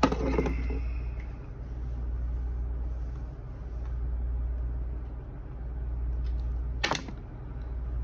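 Steady low hum that slowly swells and fades, with one sharp plastic click near the end as an RJ45 plug and a handheld cable tester are handled.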